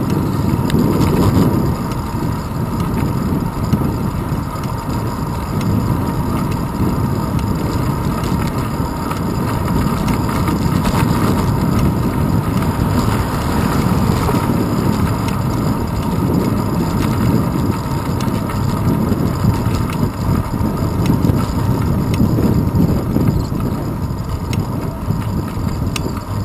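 Wind rushing over the microphone of a handlebar-mounted camera on a moving bicycle, with road rumble. A car passes about halfway through.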